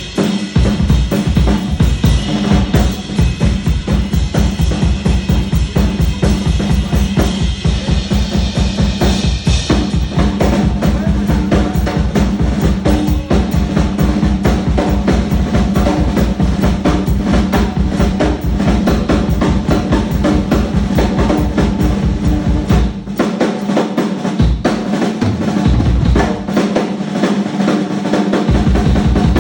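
Drum kit solo: a rapid, even run of bass-drum strokes under snare hits and cymbal wash. About 23 seconds in the bass-drum run breaks off and the playing turns into sparser, broken hits.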